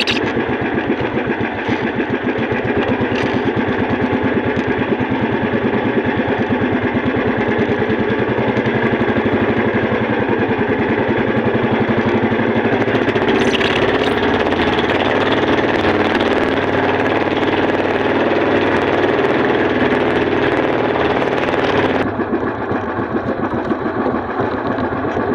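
Small boat engine running steadily with a fast, even firing rhythm. Its sound grows fuller about halfway through and drops back suddenly near the end.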